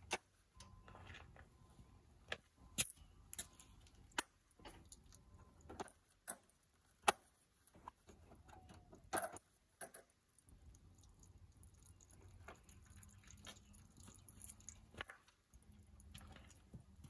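Sporadic metallic clinks and knocks of hand tools being worked, over a faint low rumble that comes and goes.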